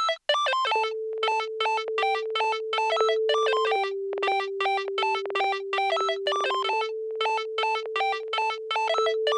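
Electronic background music: short synthesizer notes in a quick, steady pattern over a sustained held note that steps down in pitch about four seconds in and returns near seven seconds.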